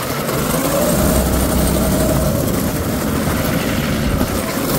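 Predator 6.5 hp single-cylinder engine of a drift trike running under way, its pitch rising and then easing back over the first couple of seconds.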